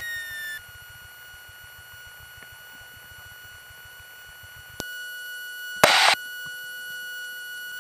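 Faint steady electronic whine of several high tones over light hiss in the aircraft's intercom and radio audio feed. A click comes about five seconds in, and a short loud burst of static follows about a second later.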